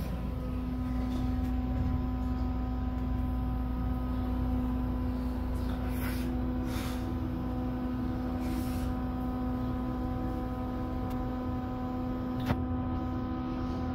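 Otis hydraulic elevator car travelling down one floor: a steady hum over a low rumble, with a single sharp click near the end.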